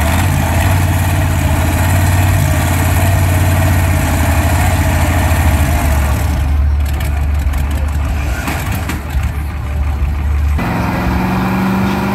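Doodlebug pulling tractor's engine running at idle with a steady low drone. About ten seconds in the sound switches abruptly to a higher, steady hum.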